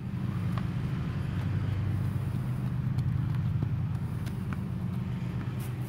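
A steady low mechanical hum, like an engine or machine running nearby, with a few faint light clicks over it, typical of footsteps on a paved path.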